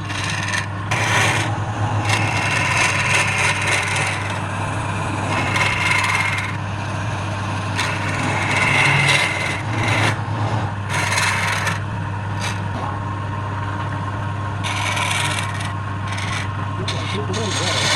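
Wood lathe motor running with a steady hum while a tool is held against the spinning wood in repeated scraping passes that start and stop every few seconds.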